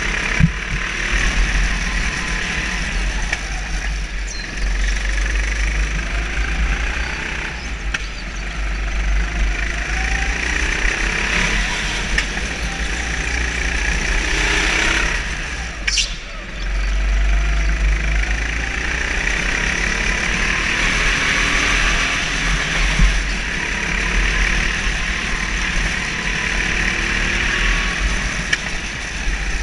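Go-kart engine running on a lap, its pitch rising and falling with the throttle, heard from a camera mounted on the kart with a deep, steady rumble. A brief high squeal about halfway through.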